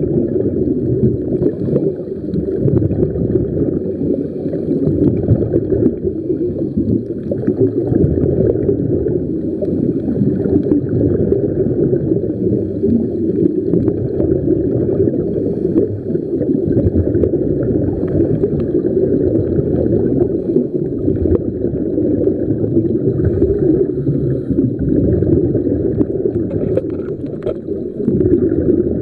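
Steady, muffled underwater rumble and water noise picked up through a camera's waterproof housing while submerged, with slight swells in level every few seconds.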